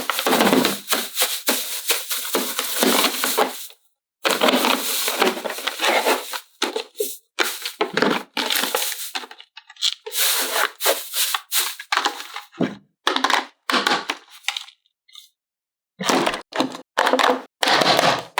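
Plastic toy packaging and playset parts being handled: irregular crinkling, crackling and clicking bursts, broken by two sudden silences.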